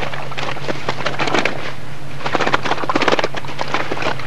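Dense, irregular crackling and rustling of plastic sheeting as lively fish thrash inside a keep sack and hands work at it.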